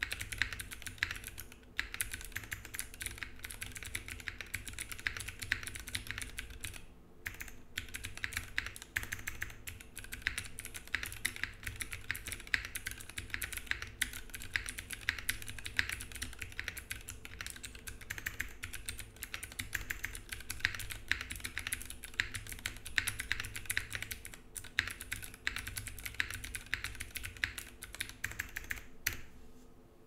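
Continuous fast typing on a Cornetto 60 mechanical keyboard with Milkstotle 65 g switches, an FR4 plate in a pin-mount sandwich and GMK Toxic keycaps: a dense run of key clacks, with a short break about seven seconds in, stopping shortly before the end.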